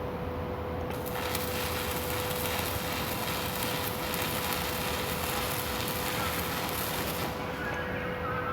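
Electric arc welding: a dense, steady crackle starts about a second in and stops shortly before the end as the arc is broken. A steady hum runs underneath throughout.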